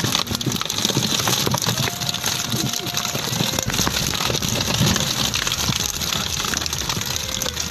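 Live tilapia tipped out of a box onto wet wooden planks: a dense, steady clatter of many fish slapping and flopping against the boards and each other, with splashing water.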